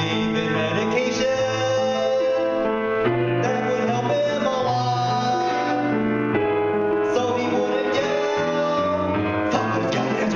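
A man singing over grand piano chords, holding long notes.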